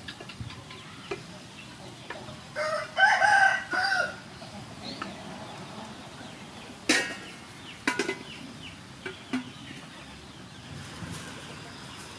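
A rooster crows once, about three seconds in. A few sharp knocks of a utensil on the wok follow later.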